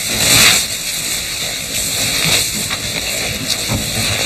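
Snow hissing and rushing as a person slides down a snowy bank on snowshoes, loudest in the first half-second and then a steadier hiss with a few soft scuffs.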